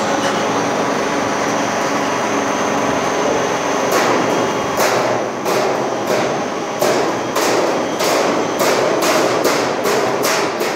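Cold roll forming machine running as it forms a galvanised steel tray section, a steady mechanical noise with a faint high whine. From about four seconds in, sharp metallic knocks join it, about two a second.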